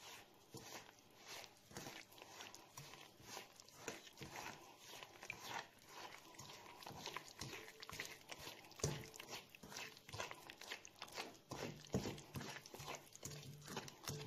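A bare hand squeezing and mixing raw eggs, sugar and softened butter in an enamel bowl: irregular wet squelches and squishes, several a second.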